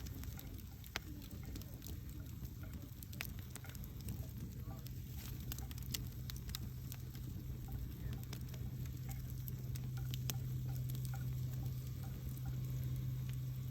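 Wood campfire crackling: sharp, irregular pops and snaps over a low rumble of burning. A steady low hum grows stronger from about a third of the way in.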